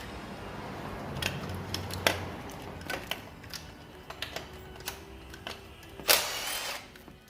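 Scattered metallic clicks and knocks of hand tools and parts being handled during work on a car, with a louder burst of rasping noise lasting most of a second near the end.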